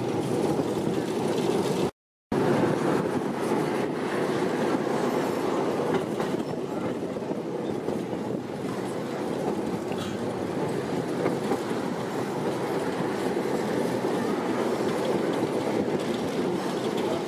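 Tram running along its rails, heard from on board: a steady running noise of wheels and motors. The sound drops out completely for a moment about two seconds in.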